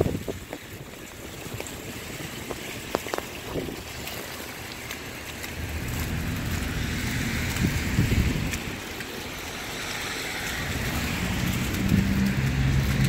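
Street traffic on slushy, snow-covered roads: passing vehicles with a wet tyre hiss and engine rumble, growing louder in the second half, with some wind on the microphone.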